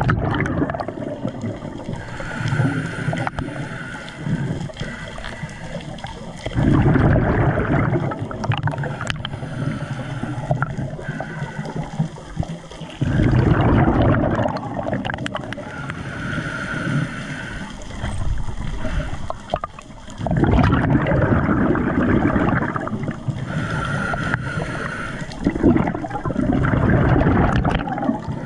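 Underwater gurgling and bubbling water noise around a diver, swelling into loud rumbling surges about every six to seven seconds, with a faint steady tone between the surges.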